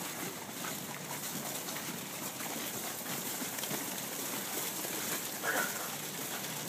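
Many footsteps of a crowd walking together, an irregular shuffle of steps with a brief faint voice about five and a half seconds in.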